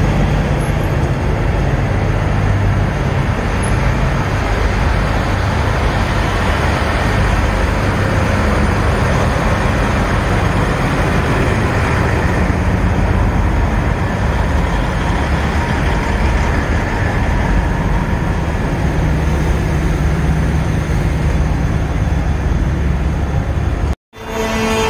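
Steady rumble of idling diesel semi trucks with street traffic noise, cutting off abruptly near the end.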